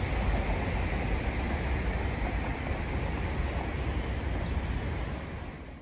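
Street traffic noise, a steady rumble that fades away near the end.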